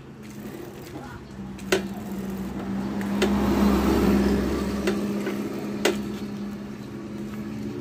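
Honda Revo rear wheel spinning on its stand, its drive chain and drum brake turning with a steady whirring hum that swells around the middle and eases off, with a few sharp clicks. This is a spin test of the freshly repaired rear drum brake.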